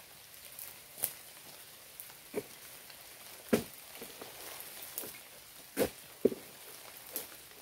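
Raindrops dripping onto a surface close to the microphone: about six sharp, irregularly spaced taps over a faint steady hiss of rain.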